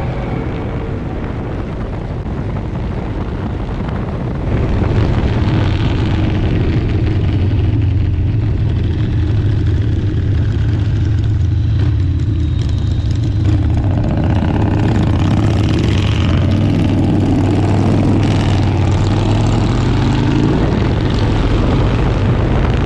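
Motorcycle engine running at a steady cruise with a strong low drone and a rush of noise above it. It gets louder about four and a half seconds in, then holds steady.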